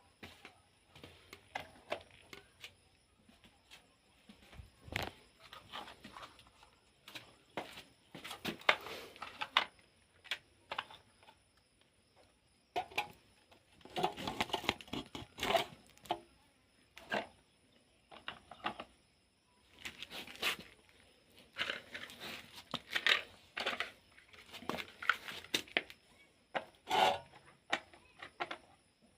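Plastic toy vehicles being handled and moved about: irregular clicks, knocks, rattles and short scrapes, coming in clusters.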